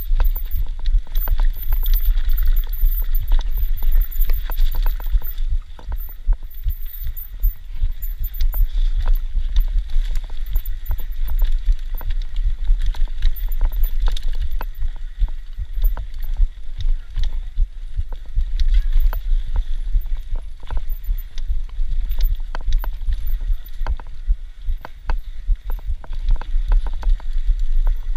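Mountain bike descending a rough dirt trail: a heavy low rumble under constant irregular rattling and knocking of the bike's parts over roots and stones.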